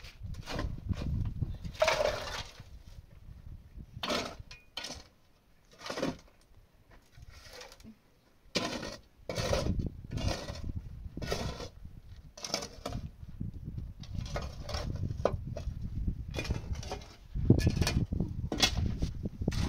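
Small shovel digging and scraping into dry, stony earth, with soil and pebbles tipped into a metal basin: irregular scrapes, knocks and clinks, about one a second with short pauses.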